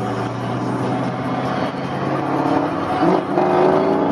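Car exhaust fitted with a Basani X muffler and Dynomax resonators, droning steadily while driving, then rising in pitch as the car accelerates from about two seconds in, with a brief break in the tone around three seconds in.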